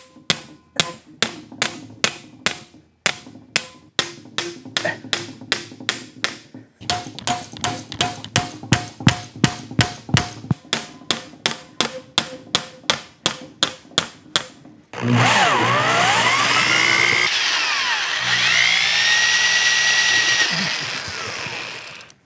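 Hammer blows, about three a second, on a stuck screw in a motorcycle engine's side cover. About fifteen seconds in they give way to a loud continuous whirring noise whose pitch rises and falls, like a power tool at work.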